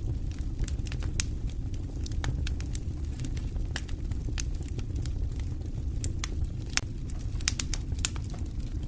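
Wood fire burning in a stone fireplace: a steady low rumble of the flames with irregular sharp crackles and pops, several close together about seven to eight seconds in.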